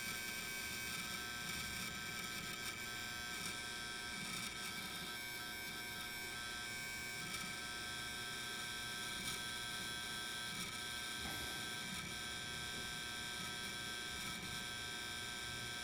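Hard drive in a Dell XPS 8920 desktop making a steady electric buzzing whine with a few faint ticks. The new owner fears this noise is a fault.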